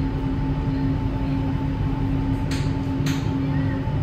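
Steady running noise heard from inside an Alstom NS-93 rubber-tyred metro car travelling between stations: an even rumble with a constant low hum. Two short, sharp clicks come about half a second apart, a little after the midpoint.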